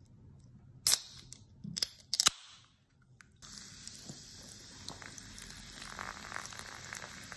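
A can of carbonated grape soda snapping open at its pull tab with a sharp crack about a second in, followed by a few more snaps and a hiss. Then the soda pours into a glass with steady fizzing and crackling bubbles.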